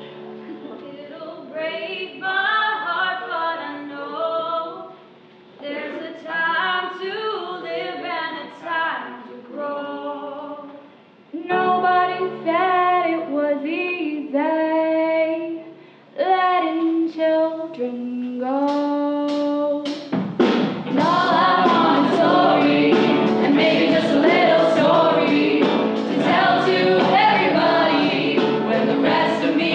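A song from a stage musical: one voice sings over instrumental accompaniment, with short breaks between phrases. About two-thirds of the way through, the full cast joins in as a louder ensemble chorus.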